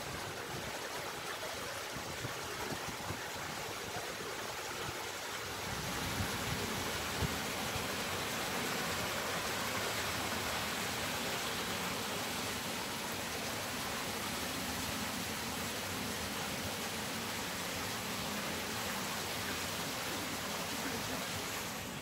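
Steady rushing hiss of outdoor background noise, a little louder from about six seconds in.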